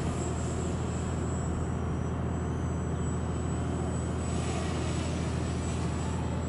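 Walkera Runner 250 racing quadcopter's motors and propellers buzzing steadily at a distance, over a steady low rumble. The drone is losing power, which is put down to the battery possibly running flat.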